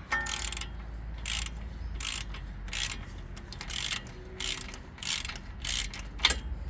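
Hand ratchet wrench working a bolt on the shock absorber mount, its pawl rasping on each back-stroke about every 0.7 seconds, with a sharp metal click near the end.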